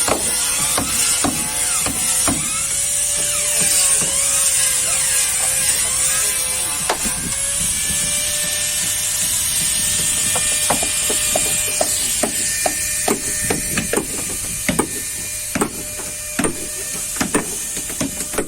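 Hammering on wood: irregular blows, coming thicker in the second half, over a steady high hiss.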